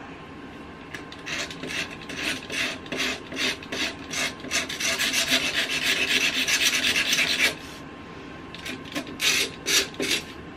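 Razor blade scraping paint off the edge of a painted wooden frame in quick repeated strokes, distressing the finish to show aged wood. The strokes run for several seconds, pause briefly, then a few more come near the end.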